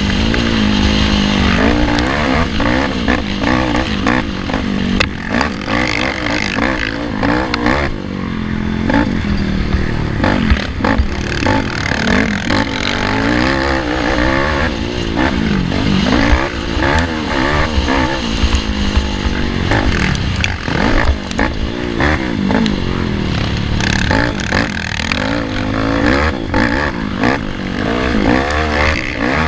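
Race ATV engine heard from onboard, revving up and down repeatedly as the rider works the throttle and gears over a rough dirt track, with frequent knocks and rattles from the machine bouncing over the ground.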